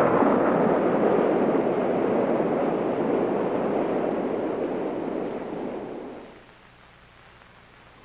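Steady rushing wind noise that fades away about six seconds in.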